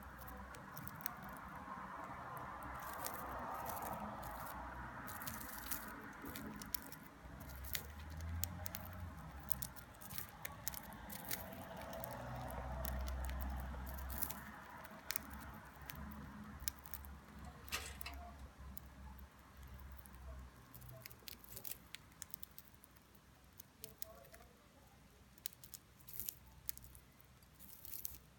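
A budgerigar pecking and nibbling at greens: many small, irregular beak clicks and taps, with a low rumble from handling in the first half, thinning out later.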